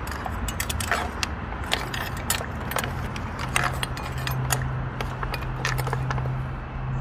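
Metal spoon stirring steamed clams in a cast-iron Dutch oven: irregular clinks and scrapes against the clam shells and the pot. A low steady hum comes in about three seconds in.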